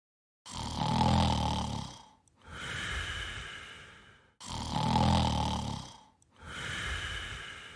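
A person snoring: two slow snore cycles, each a louder low snore on the breath in followed by a quieter, airy breath out.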